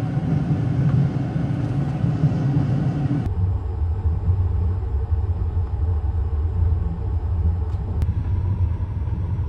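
Passenger train running, a steady low rumble heard inside the carriage; about three seconds in the rumble changes abruptly and becomes deeper.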